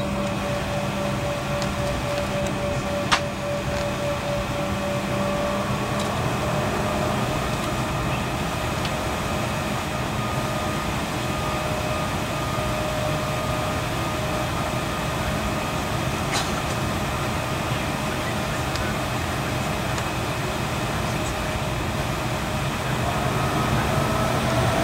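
Steady jet engine hum heard inside an airliner's cabin while it taxis, with one sharp click about three seconds in. Near the end the hum grows louder and rises in pitch as the engines spool up for the take-off roll.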